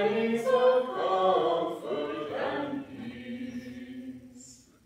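Voices singing together the last phrase of an Advent candle-lighting hymn, holding the final notes, which fade away during the last second or two.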